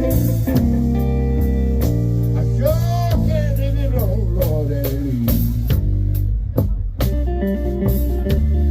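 Live blues band playing: guitar over bass and drums, with a run of notes bending up and down in pitch about three seconds in.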